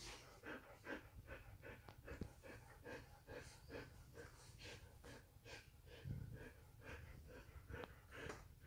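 Faint, quick snuffling breaths of a puppy mouthing and wrestling with another dog, a soft puff about two or three times a second, with light rustling of bedding.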